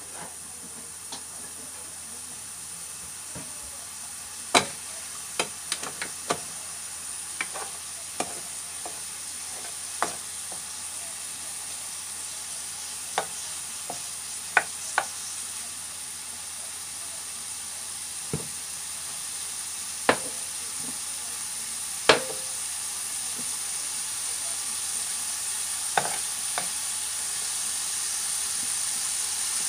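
Ground beef sizzling as it browns in a frying pan with no oil added, cooking in its own fat, the sizzle growing slowly louder. A plastic spoon stirring it gives sharp taps and scrapes against the pan now and then, the loudest about four seconds in and again a little past twenty seconds.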